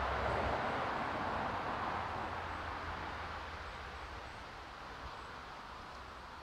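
A vehicle passing at a distance: a steady rush of noise with a low hum, loudest at the start and slowly fading away.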